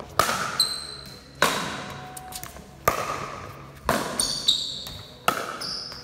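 Pickleball rally: paddles strike the plastic ball five times, about one hit every 1.3 seconds, each sharp pock echoing in a large hall. Short high squeaks sound between some of the hits.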